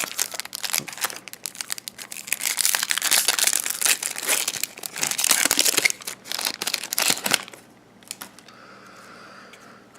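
Plastic foil wrapper of a baseball card pack crinkling and tearing as it is opened by hand, a dense run of crackles that stops about seven seconds in.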